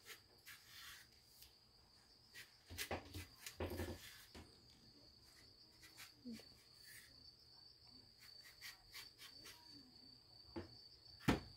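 Steady high-pitched trill of crickets in the background, with scattered soft clicks and knocks of kitchen handling: a louder cluster about three to four seconds in and a sharp click near the end.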